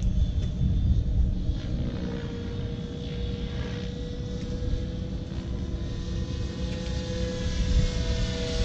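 Radio-controlled F3C aerobatic model helicopter flying: a steady whine that drifts slightly in pitch, over a heavy low rumble.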